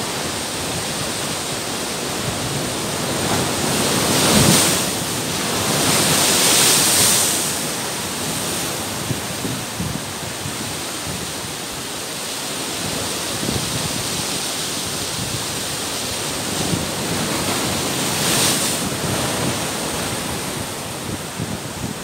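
Sea waves breaking and washing over rocks: a continuous rush of churning surf, swelling louder as bigger waves crash in about four seconds in, again a couple of seconds later, and once more near the end.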